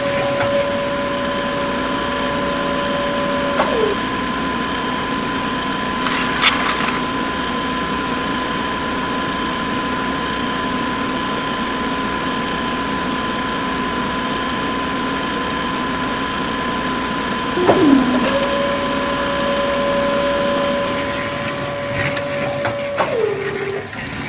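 Small electric toy motors running steadily with a whine. One motor stops about four seconds in, starts again later, and winds down in pitch as it stops near the end.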